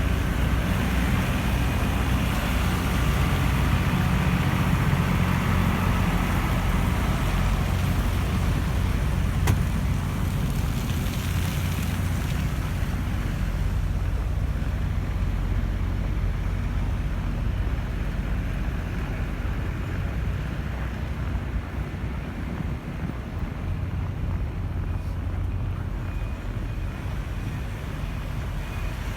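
Steady low rumble of wind and city street traffic.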